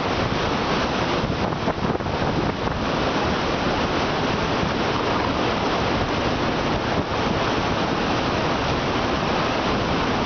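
Steady rushing roar of the Salto do Itiquira waterfall close by, a loud even wash of falling water.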